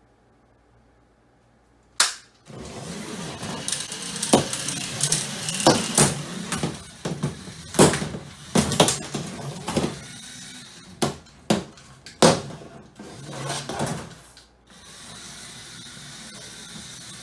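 After about two seconds of near silence comes a sharp click. Then LEGO battle robots' electric motors whir while plastic bricks clack and knock hard in a run of collisions. Near the end the knocks stop and a steady motor whir goes on.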